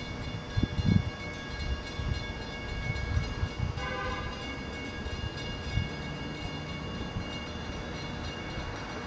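Distant LIRR DE30AC diesel locomotive approaching, heard as an uneven low rumble under several steady high tones. About four seconds in there is a short pitched blast.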